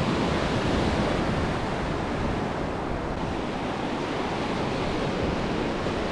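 Ocean surf: a small wave breaks at the start and its wash rushes up a sandy beach as a steady hiss.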